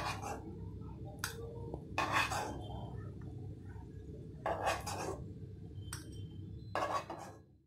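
Metal slotted spoon scraping in a nonstick frying pan and clinking against a glass bowl as fried banana slices are lifted out and dropped in, in about five separate clatters a second or two apart.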